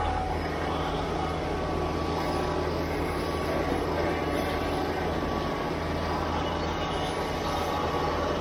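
Kubota BX23S tractor's three-cylinder diesel running steadily under load while its front-mounted snowblower churns and throws heavy wet snow, heard from inside the cab.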